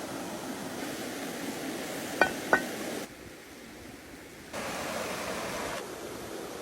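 Steady rushing outdoor noise, with two sharp ringing clinks, like metal or glass struck, about a third of a second apart a little over two seconds in. The background drops suddenly for about a second and a half, then comes back.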